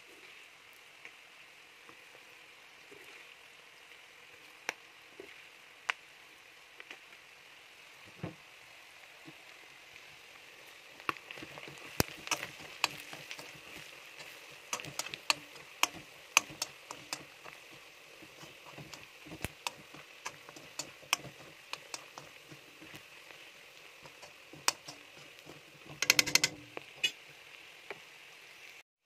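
Pork and chicken pieces sizzling in hot oil in a wok, a steady hiss. From about eleven seconds in it is dotted with frequent sharp pops and clicks, and a louder clatter comes a couple of seconds before the end.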